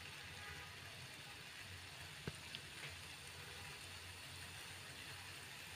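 Rava paal paniyaram batter deep-frying in hot oil: a faint steady sizzle, with a couple of small clicks a little over two seconds in.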